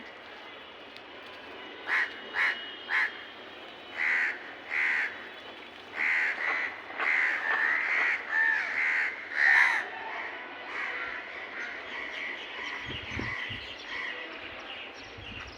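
Crows cawing: a few separate caws at first, then a quicker run of overlapping caws, turning to fainter, softer calls after about ten seconds.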